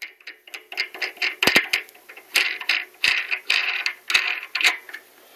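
A knurled metal nut being threaded by hand onto a lathe mandrel that clamps a skate wheel: a string of short metal-on-metal scraping and clicking strokes, about two or three a second.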